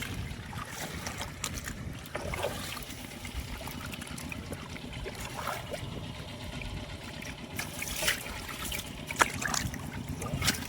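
Water sloshing and splashing in a shallow, muddy flooded rice field as fish are chased and grabbed by hand, with a few sharper splashes near the end over a steady low rumble.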